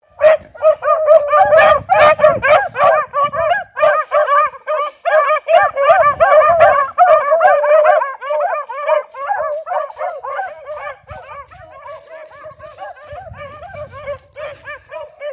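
A pack of beagles baying together on a rabbit's trail, many overlapping drawn-out bays and yelps at once, the sign of hounds in full cry on the scent. The chorus grows fainter from about halfway through as the pack runs off.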